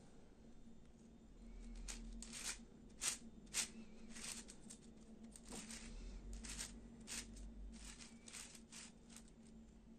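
3D-printed PETG plastic twisty puzzle clicking and scraping as its interlocking circles are turned by hand: a run of short, irregular clicks. The two loudest come about three seconds in, half a second apart.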